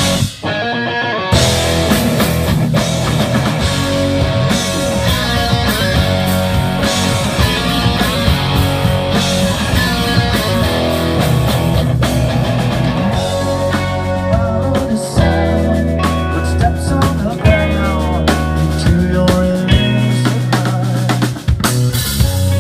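A live rock band plays an instrumental passage with a drum kit and guitars. The sound drops out briefly just after it begins.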